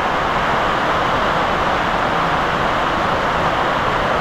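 Heavy rain coming down hard, an even, unbroken hiss.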